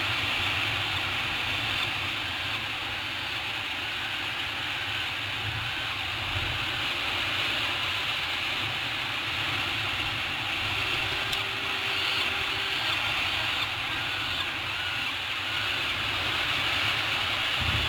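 Steady outdoor noise: a low rumble under a continuous hiss, typical of wind on an exposed camera microphone. A faint low tone sounds for about two seconds about eleven seconds in.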